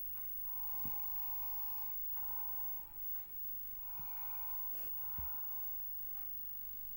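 Small orange kitten making repeated breathy hisses, each under a second long, about five in a row.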